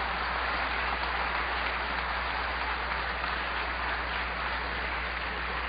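Audience applauding: a hall of seated people clapping at a steady level.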